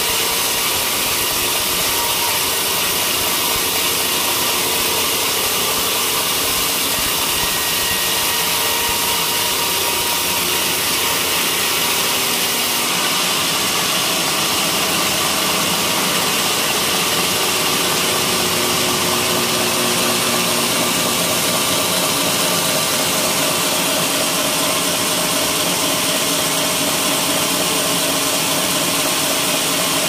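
Band sawmill running steadily, its blade ripping a teak beam lengthwise into a squared post; the sound changes slightly about 13 seconds in and then runs on unbroken.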